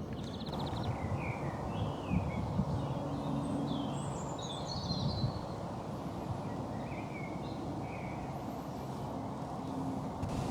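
Outdoor morning ambience: small birds chirping and singing now and then over a steady low background noise.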